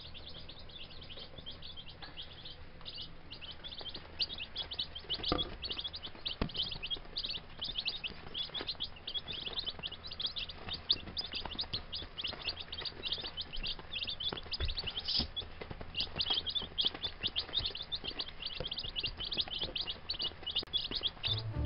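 A brood of baby chicks (Gold Star, Rhode Island Red and Buff Orpington) peeping constantly: many short, high peeps overlapping several times a second.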